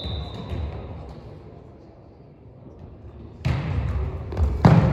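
The tail of a referee's whistle ends about half a second in. About 3.5 s in, volleyball play starts with a hand striking the ball, then a louder sharp hit near the end, echoing in the gym, with voices calling out.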